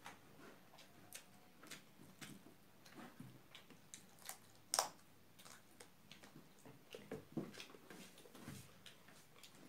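Quiet eating sounds: chewing, lip smacks and fingers working rice on plates, heard as a scatter of soft clicks and squishes. One sharper, louder click comes about five seconds in.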